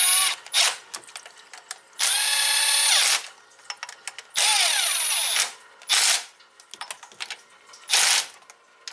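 Cordless impact driver spinning bolts at a Chevy Silverado V8's thermostat housing. It comes in several runs of high motor whine about a second long, and the pitch sags near the end of one as it loads up. Shorter bursts come around six and eight seconds in, with small clicks of the tool and socket in between.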